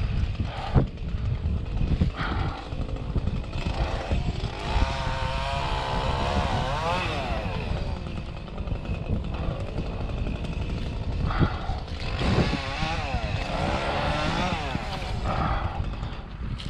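An engine running, its pitch rising and falling twice, over a steady low rumble.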